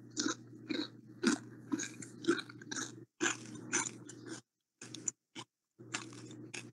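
A person chewing close to the microphone, about two crunchy chews a second, over a low mic hum that cuts out now and then.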